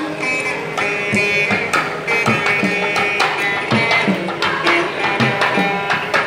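Carnatic veena playing a melody of plucked, gliding notes, accompanied by a mridangam drum beating a rhythm of sharp strokes and deep thumps.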